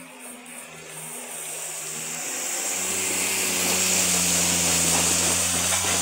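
Suzuki Jimny's engine running steadily as it fords a river, with water rushing and spraying around the wheels. Both grow louder as the vehicle comes close, loudest a little after the middle.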